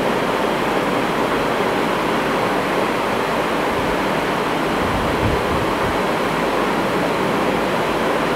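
Steady, loud rushing background noise with no speech, with a few low bumps in the middle.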